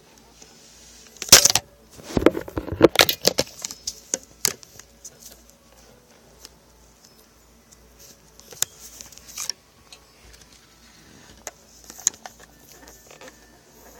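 Clattering and rattling of small hard objects, a dense cluster of clicks and knocks a second or so in lasting about three seconds, then a few isolated clicks later on.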